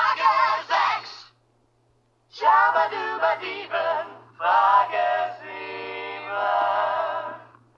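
Sung voice with a synthetic, processed sound, in short phrases. It breaks off about a second in, returns a second later, and ends with long held notes.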